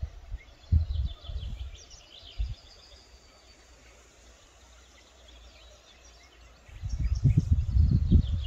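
Small birds chirping in the background over a low, uneven rumble that grows much louder about seven seconds in.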